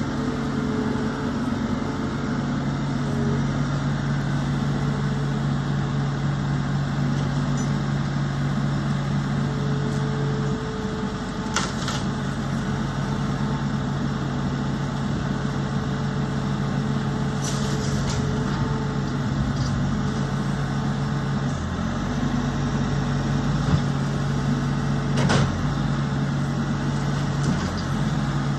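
Engine of heavy demolition machinery running steadily, with a few sharp knocks or clanks now and then.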